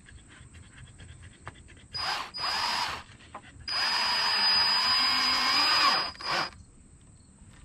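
Cordless drill driving a screw into a wooden 2x4: a short run about two seconds in, then a longer run of about two seconds with a steady high motor whine, and a brief final spurt.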